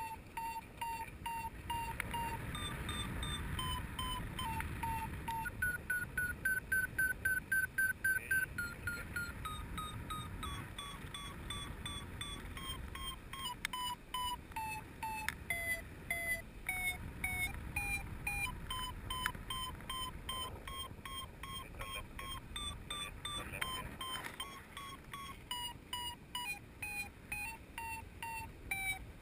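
Paragliding variometer beeping in short tones whose pitch and pace shift with the lift, quickest and highest a few seconds in, the sound a vario makes while the glider is climbing. Wind rushes on the microphone underneath.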